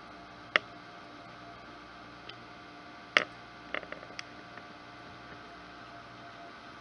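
Hitzer wood stove with a fire going: a few sharp pops and ticks over a steady faint hum. The loudest pop comes about three seconds in, followed by a quick cluster of smaller ones.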